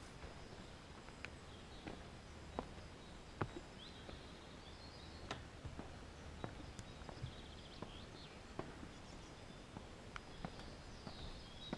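Footsteps on a forest trail at a walking pace, about one step a second, with faint bird calls: a short high trill about 4 s in, chirps near 6 s and another trill near the end.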